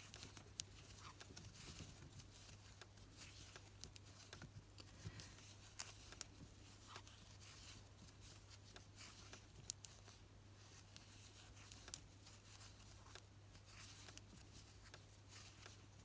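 Near silence: a steady low hum with faint, scattered light ticks and rustles from a metal crochet hook and yarn being worked.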